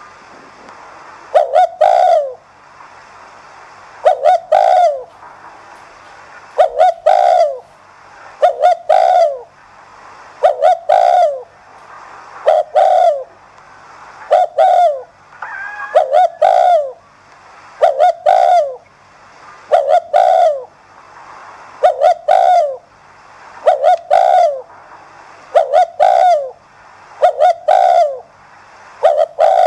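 Spotted dove cooing in the fast, insistent 'thúc gù' style: the same short phrase of a few falling coo notes, repeated about every two seconds and starting about a second in.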